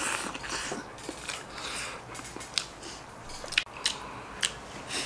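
A person eating soupy food: a slurp as the food goes into the mouth, then chewing with several sharp clicks and smacks.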